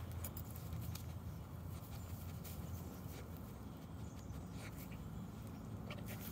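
A Keeshond sniffing and nosing through dry grass, with scattered rustles and crackles of the grass stems over a steady low rumble.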